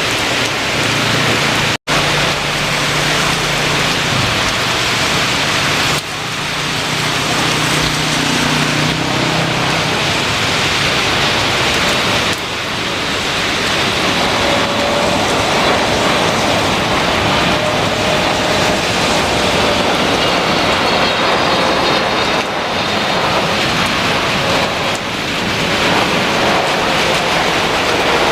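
Heavy rain with jet airliner engines running through it: a low hum early on, then a steady engine whine over the rain hiss in the second half. The sound drops out for an instant about two seconds in and changes abruptly at a couple of cuts.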